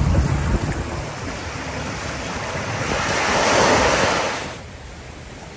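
Small sea waves washing onto a rocky sand beach, with wind buffeting the microphone at the start. The surf swells up about three seconds in, then the sound falls away abruptly.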